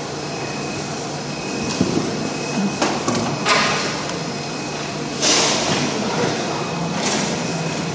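CNC router with a circular-saw head, its machinery running with a steady hum and a faint high whine. A few short hisses and clunks come from about three seconds in, the loudest just after five seconds.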